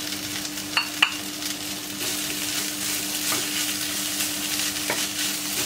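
Wooden spatula stirring and scraping spiced crushed beef in a nonstick frying pan while the mixture sizzles steadily, with a couple of sharp clicks about a second in.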